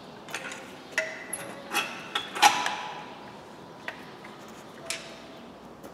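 Metal clunks and clinks as a Skoda Fabia's manual gearbox is worked off the back of the engine during a clutch replacement: a handful of separate knocks, some with a short ringing tone, the loudest about two and a half seconds in.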